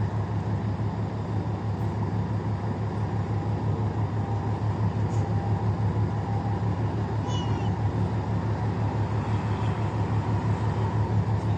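Ship's engine running steadily with a low, fast, even throb, heard from on board as the vessel gets under way. A short high-pitched call rises briefly about seven seconds in.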